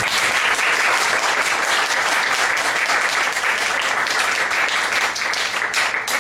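Small audience applauding with dense clapping, thinning out into a few separate claps near the end.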